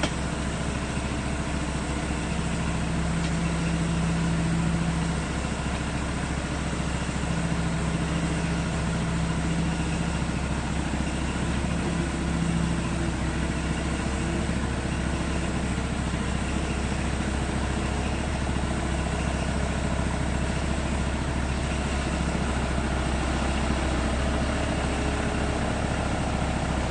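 Diesel engine of a Hitachi ZAXIS 70 excavator idling steadily with a heavy low hum.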